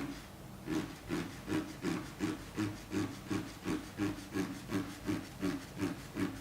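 Paper being scratched with a hand tool in quick, even strokes, about three a second, each a short rasp. The strokes begin about a second in.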